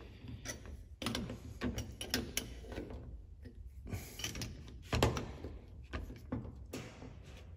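Scattered light clicks and knocks of an open-end wrench on the metal fuel shutoff solenoid of a small-engine carburetor's float bowl as it is fitted and tightened. The louder knocks come about a second in and about five seconds in.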